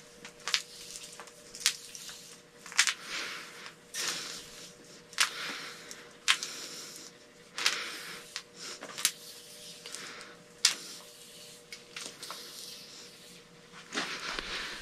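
Thin telephone wire being pulled hand over hand to work out its knots and twists: a short swish of the wire about once a second, over a faint steady hum.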